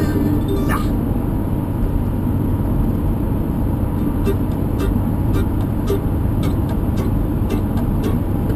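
Vehicle driving on a sealed road, heard from inside the cabin: a steady low rumble of engine and tyres. Scattered faint clicks and ticks join in from about four seconds in.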